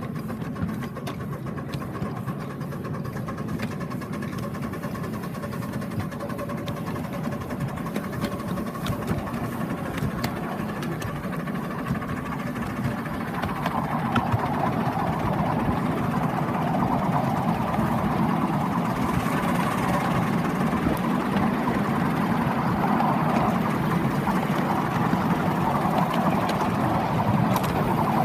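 Miniature railway locomotive and train running along the track, heard from the seat just behind the engine. The running sound grows louder and rougher about halfway through.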